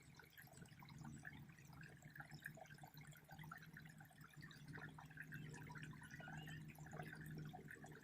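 Faint water sounds, small irregular drips and splashes, over a low steady hum.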